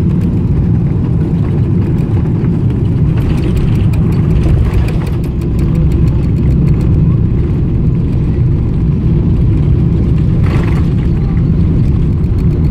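Passenger jet landing, its engines a loud, steady low rumble, with brief rises of higher hiss about three to five seconds in and again near the end.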